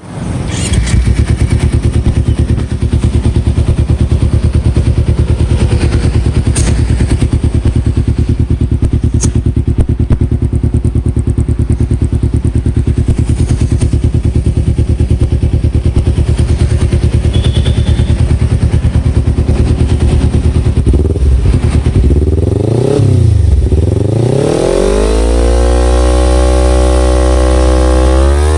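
Kawasaki Ninja 250FI parallel-twin running through a Black Devil aftermarket exhaust, idling steadily with a deep, bassy note. About three quarters of the way in it is revved once up and back down, then the revs climb and are held high near the end.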